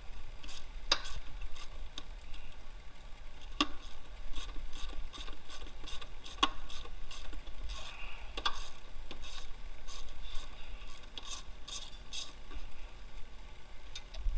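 Hand tools working 12 mm bolts loose: scattered irregular clicks and clinks of a wrench on metal, with a few louder knocks, over a steady low rumble.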